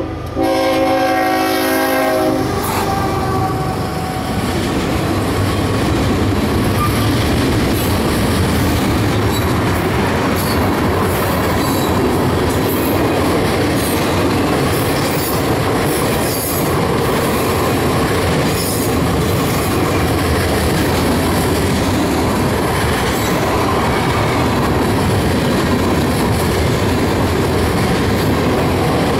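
A freight train's diesel locomotive sounds its air horn, a sustained multi-note chord that cuts off about two and a half seconds in. Then the train's boxcars roll past close by, a steady loud noise of steel wheels on rail with scattered clanks.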